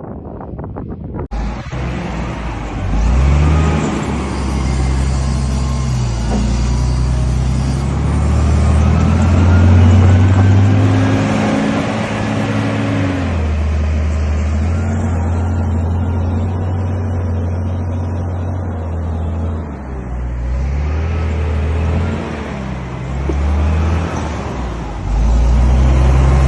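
Heavy diesel engine of snow-clearing work machinery running hard, its pitch rising and falling as it revs up and down. It cuts in abruptly about a second in.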